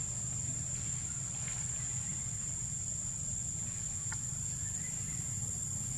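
Steady high-pitched drone of insects over a constant low rumble, with a couple of faint clicks.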